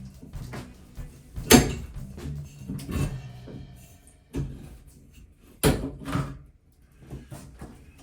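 Sharp knocks and clatter of hand tools working on shower plumbing in the wall, with two loud strikes about a second and a half and five and a half seconds in. Background music fades out near the start.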